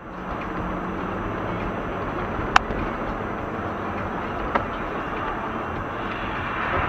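Steady road noise of a moving car, with a sharp click about two and a half seconds in and a fainter click two seconds later.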